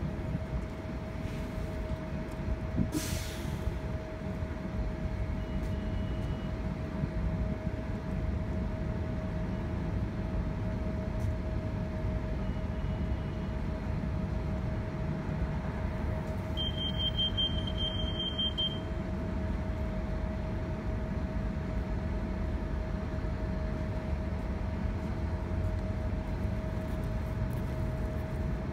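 Metrobus transit bus running at low speed, a steady low rumble with a steady whine over it. A short hiss comes about three seconds in.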